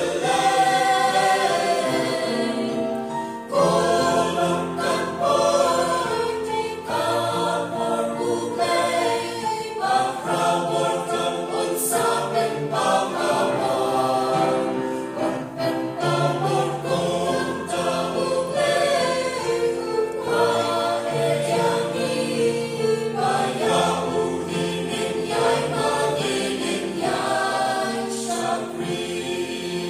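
Mixed church choir of women's and men's voices singing a hymn, with a brief break about three and a half seconds in before the next phrase.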